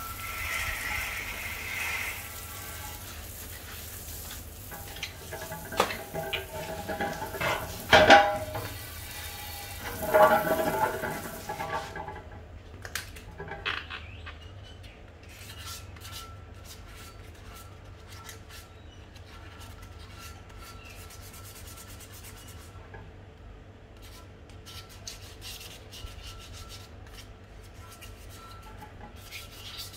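Water from a garden hose spray nozzle splashing onto an alloy wheel rim for about the first twelve seconds, louder twice near the end of the spraying. Then the spray stops and hands rub and wipe the wet rim's spokes, with scattered light ticks.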